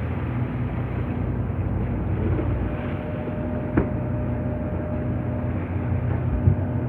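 Boat engine running steadily underway, a low even drone heard aboard with wind and water noise over it. A short sharp click comes about halfway through and a thump near the end.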